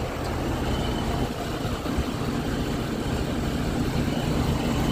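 Ford F250 pickup's engine idling steadily with a low hum.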